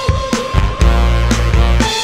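Bass trombone, vibraphone and drum kit playing together: low trombone notes under a held higher note, with drum hits.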